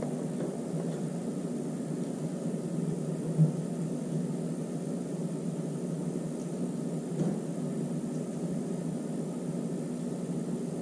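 Steady low hum and hiss of room background noise, with two faint short knocks, one about three seconds in and one about seven seconds in.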